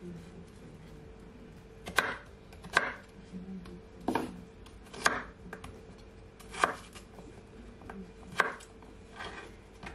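Kitchen knife cutting peeled potatoes into chunks on a wooden chopping board: about seven separate cuts, each ending in a sharp knock of the blade on the board, irregularly spaced a second or so apart.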